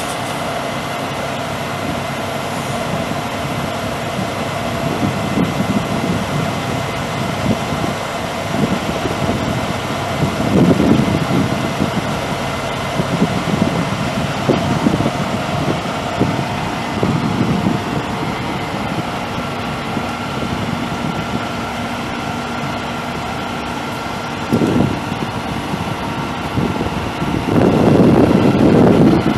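International DT530 8.7-litre inline-six turbo diesel of a bucket truck idling with a steady hum and whine. Louder low rumbles come and go, the strongest near the end.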